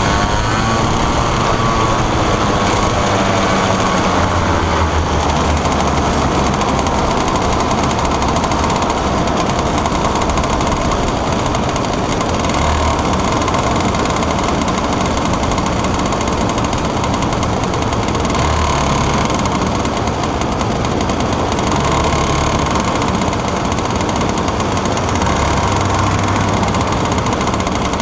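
125cc two-stroke TaG kart engine running at racing speed, heard onboard the kart with a hard, rattling note. Its pitch shifts in the first few seconds, then holds fairly steady.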